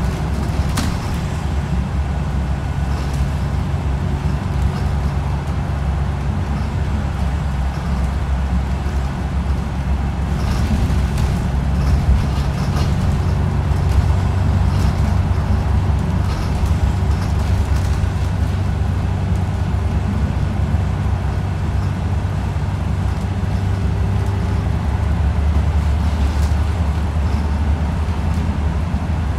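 Inside a moving bus: a steady low engine and drive rumble with road noise, and a few short rattles from the bus body.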